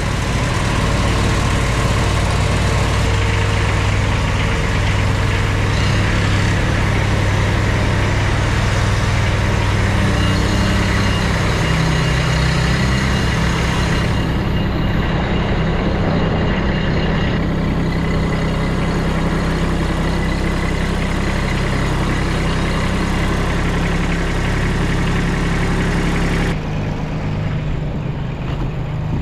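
2001 Walker riding mower's engine running steadily, warming up shortly after a start on choke with a little throttle. Its pitch rises slightly about twelve seconds in, and it turns quieter and less even near the end.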